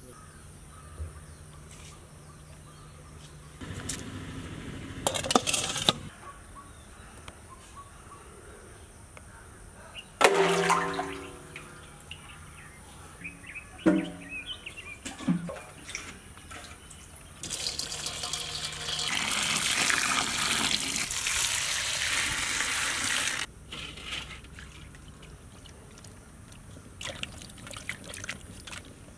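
Water splashing and pouring into a steel basin while bell peppers are washed by hand, loudest for several seconds in the second half. Earlier there are a few knocks of the steel bowl, each with a brief ringing tone.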